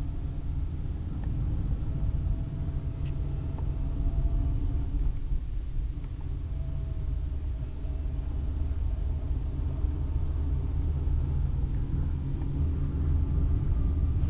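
Car driving along an unpaved field track, heard from inside the cabin: a steady low rumble of engine and tyres.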